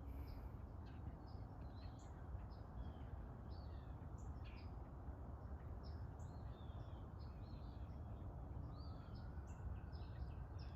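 Small birds chirping faintly and repeatedly, many short high calls scattered throughout, over a low steady background rumble.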